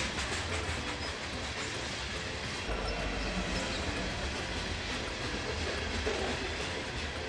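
Battery-powered LEGO DUPLO cargo train running along plastic track and through a switch: its small motor hums steadily while the plastic wheels rattle over the track, the low hum growing stronger about three seconds in.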